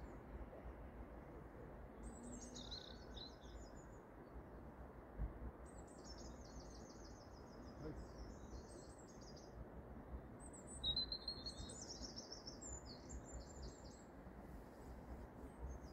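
A small songbird singing several short phrases of fast, high-pitched trilled notes, over a faint low rumble.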